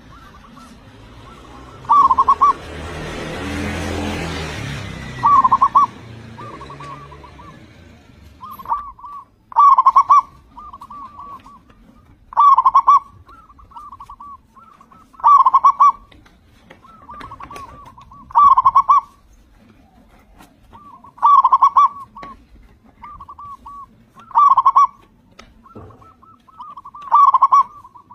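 Zebra dove (local Indonesian perkutut) singing in good voice: a loud trilled cooing phrase about every three seconds, each followed by softer trailing notes. A rushing noise swells and fades between about two and six seconds in.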